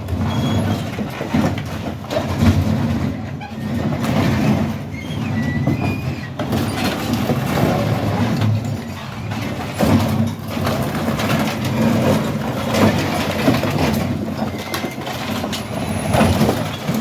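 Heavy machine's diesel engine working under load while the Dodge Dakota's metal creaks, scrapes and knocks as its body is pulled from the frame, with a few brief squeals of straining metal. The truck is resisting being torn apart.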